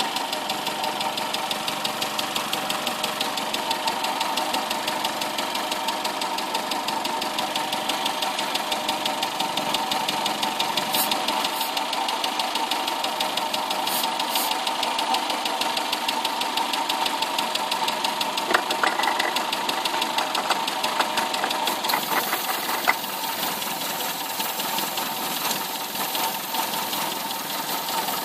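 Car engine idling steadily with a fast, even pulse, running while it is sprayed with aerosol to find vacuum leaks. A few brief sharp sounds break in around the middle.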